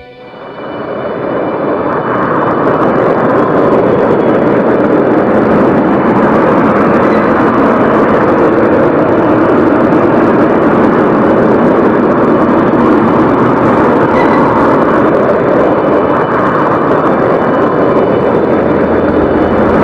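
Steady, loud roar of a volcanic crater venting gas and steam, fading in over the first couple of seconds and then holding even.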